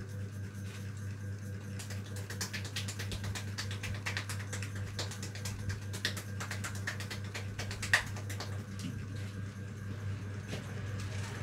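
Fingers rubbing and working through hair on the scalp during a head massage, giving a run of crisp crackles and small clicks, with one sharp, louder snap about eight seconds in. A steady low electrical hum runs underneath.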